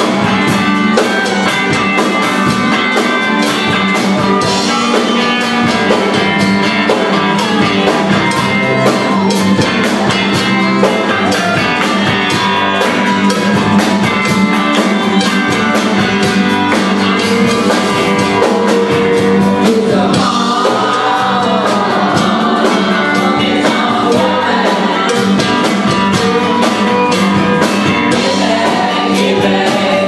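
A live band playing rock and roll, with a drum kit keeping a steady beat under electric guitars, and several voices singing together.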